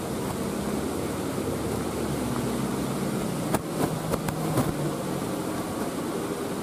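A road vehicle's engine running, its pitch drifting a little up and down. There are a few sharp clicks or knocks a little past halfway.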